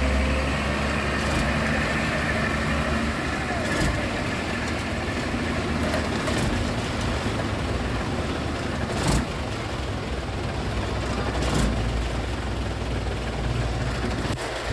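Truck engine idling steadily, with a few brief sharp clicks or knocks.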